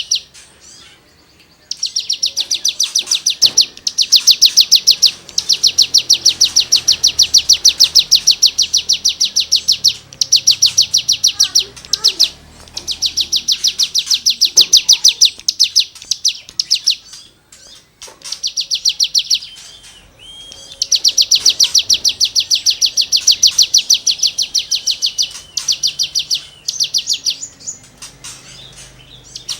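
Cigun songbird singing in long bursts of rapid, scratchy repeated notes, the 'gesekan' rasping material. Each burst runs a few seconds, with brief pauses between them.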